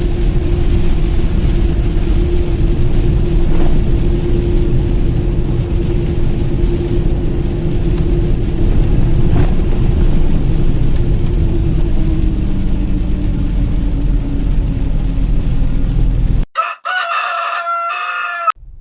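Steady engine and road drone inside a truck cab, with a low hum that sags slightly in pitch near the end. Then an abrupt cut to a rooster crowing once, lasting about two seconds.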